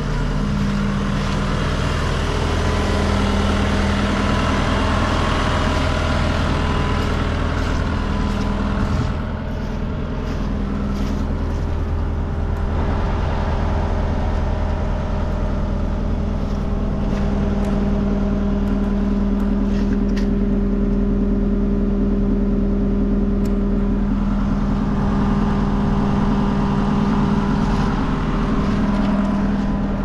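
John Deere 333E compact track loader's diesel engine running steadily at idle, a low even drone; the higher hiss over it fades about nine seconds in.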